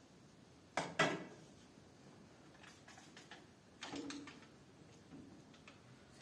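Household knocks and clatter: two sharp knocks close together about a second in, then lighter clicks and another softer knock near the middle.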